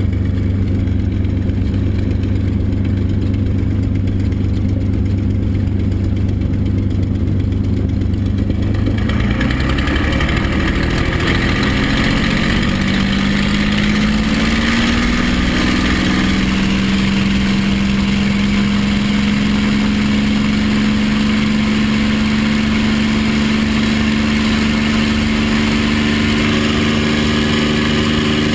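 P-51 Mustang's V-12 piston engine heard from the cockpit, running steadily at low power, then opened up about nine seconds in so that its pitch climbs over several seconds and settles into a steady, higher, louder run.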